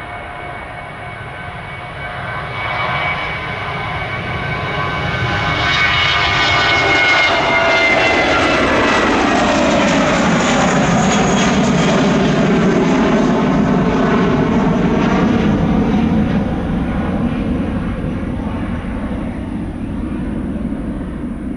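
Jet airliner passing close by, its engine noise building up, then loudest for several seconds while the engine whine drops in pitch as it goes past, and fading away.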